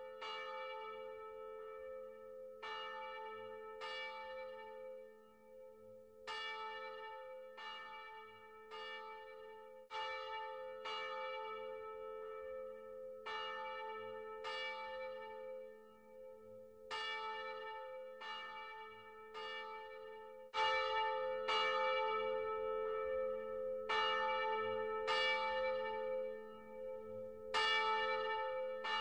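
A bell struck over and over, roughly once a second in uneven groups, each strike ringing out over a deep hum that carries on beneath them. It gets louder about two-thirds of the way through.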